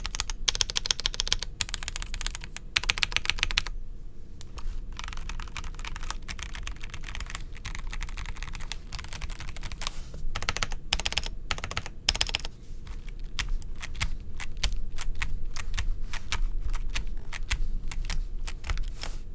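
Feker Alice 80 mechanical keyboard with stock Gateron Pro Yellow linear switches on a split polycarbonate plate, typed on quickly and continuously: rapid, dense keystroke clacks with a short pause about four seconds in.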